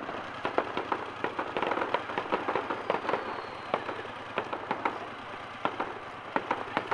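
Fireworks display: aerial shells bursting in an irregular string of sharp bangs and crackles, several a second, over a steady background rumble.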